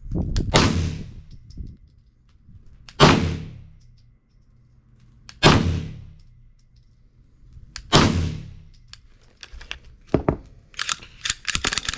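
9mm Sig Sauer M17 pistol fired four times, unhurried shots about two and a half seconds apart, each with a ringing tail. Near the end comes a rapid burst of metallic clicking and clatter.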